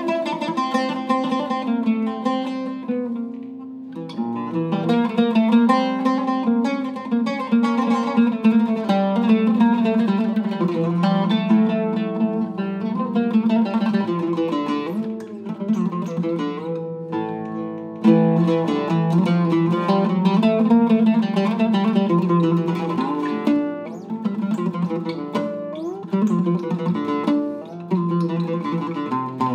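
A Syrian-made Al-Dira oud with a cedar top, an old-walnut bowl and Kröschner strings, played solo in a continuous flow of plucked notes. New phrases start with strong attacks about four seconds in and again near eighteen seconds.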